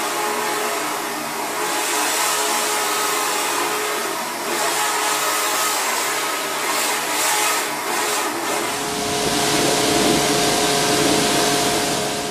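Electric high-pressure washer running, its motor and pump whining steadily under a hissing water jet. About two-thirds of the way through the sound grows fuller, with more low end.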